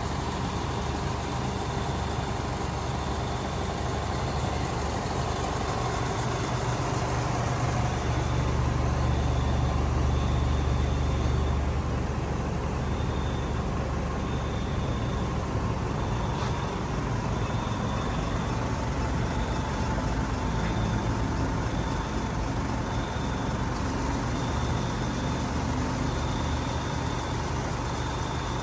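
A motor vehicle running: a steady low engine rumble with road noise that swells for a few seconds about a third of the way in. A short high beep repeats over and over on top of it.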